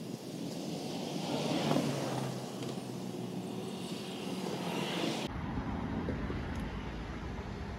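A propeller aircraft passing overhead, loudest a little under two seconds in and then easing off. About five seconds in the sound cuts abruptly to a low outdoor rumble.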